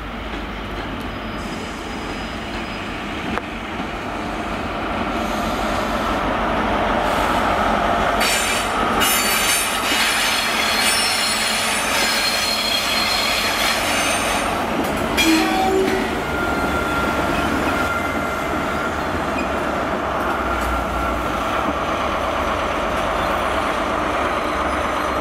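An Intercity 125 HST with its Class 43 diesel power cars running slowly into a station, with engine and wheel noise. A high-pitched metallic squeal is loudest from about 8 to 15 seconds in, and a thinner steady whine carries on after that.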